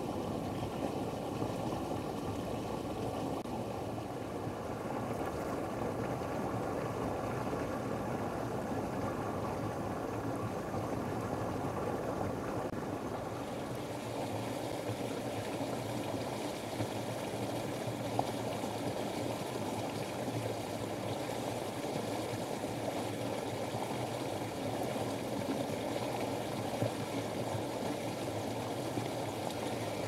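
Steady rushing background noise that stays at one level throughout.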